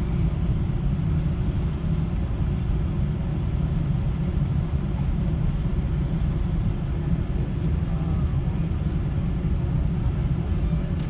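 Steady low rumble inside an airliner cabin as the plane taxis, from its jet engines running and its wheels rolling on the taxiway.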